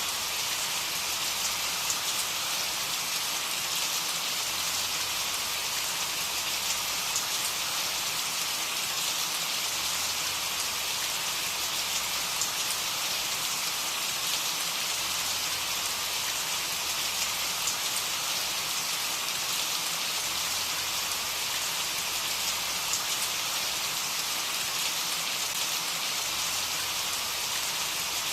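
Steady rain falling, an even hiss with the patter of individual drops on a surface.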